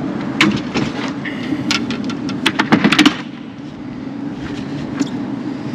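Knocks and rattles of a pickup's tailgate and gear in the truck bed being handled, with a quick cluster of clatters about halfway through, over a steady low hum.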